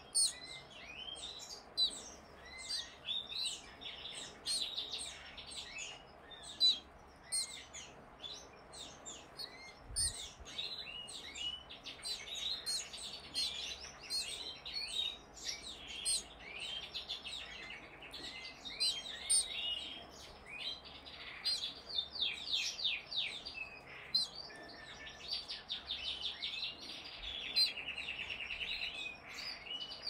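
Fledgling canary chirping during hand-feeding: many short, high chirps in quick runs, with a fast trill of repeated notes near the end.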